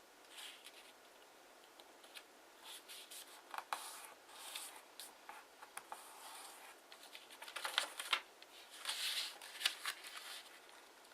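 Kraft origami paper being folded and creased by hand, crinkling and rustling in short irregular bursts, with a few sharper crackles near the end.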